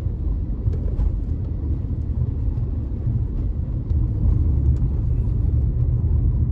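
Steady low rumble of a car driving along a wet street, heard from inside the cabin: engine and road noise.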